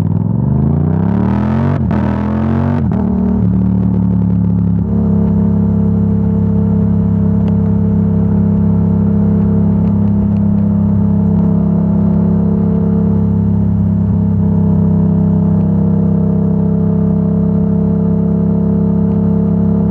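Yamaha R7's 689 cc parallel-twin engine through a Yoshimura AT2 full exhaust: its engine speed swings up and down for the first three seconds, then settles and holds a steady, even pitch.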